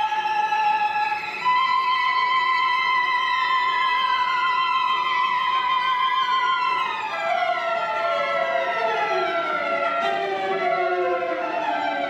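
Clarinet, violin and cello trio playing sustained high notes, one held with a wavering vibrato, then several lines sliding slowly downward in pitch together about halfway through.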